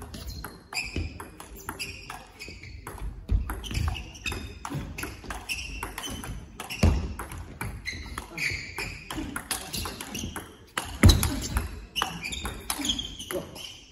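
Table tennis rally: the celluloid-type ball clicks back and forth off the bats and the table in quick succession, with a few heavier thumps and short squeaks among the clicks.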